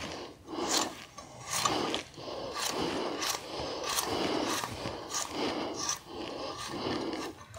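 Knife cutting raw potato into small pieces by hand over a steel bowl, in a steady rhythm of about one and a half strokes a second.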